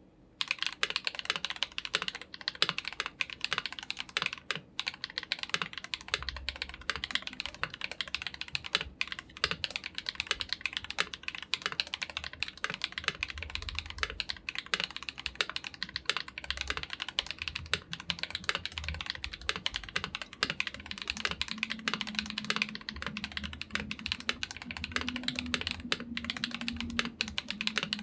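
Fast, continuous typing on a KBD67 Lite mechanical keyboard with Glorious Panda tactile switches lubed with Krytox 205g0 and Akko clear keycaps: a dense stream of irregular key clicks, starting about half a second in.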